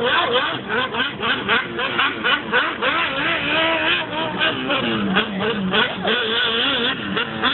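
Off-road vehicle engines revving in the dunes, several at once, their pitch rising and falling again and again.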